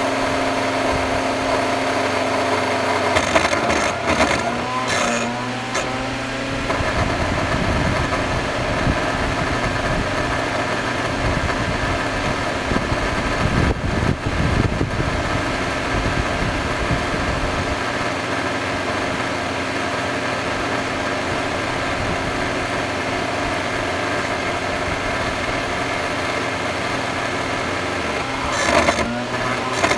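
Electrolux vacuum cleaner motor running steadily with a hum of several tones, a motor the owner calls bad. The sound shifts and clatters briefly a few seconds in and again near the end.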